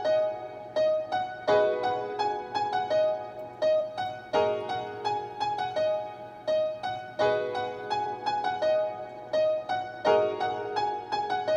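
Looping piano-style keyboard melody: a chord about every three seconds, with quick single higher notes repeating in between.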